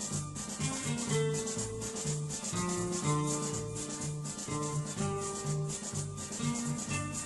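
Background instrumental music with a steady shaker-like rhythm over bass notes and held melody notes.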